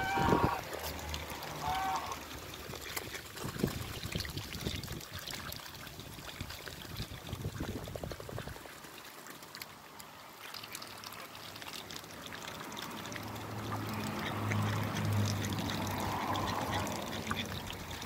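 Domestic ducks and geese dabbling in shallow puddles, their bills splashing and clicking in the water, with a couple of short honking quacks in the first two seconds. In the second half the water sound grows louder, along with a low steady hum.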